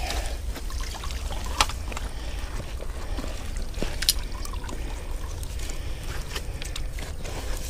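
Water sloshing and dripping as a drowned raccoon and a chain-staked trap are hauled out of a muddy creek edge, with a couple of sharp clicks along the way.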